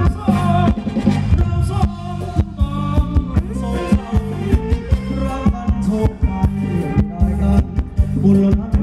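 Thai ramwong dance music from a live band: a steady, quick drum beat under bass and melody lines.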